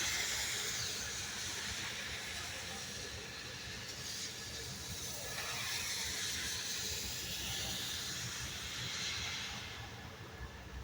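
Rain falling, a steady hiss that eases off near the end.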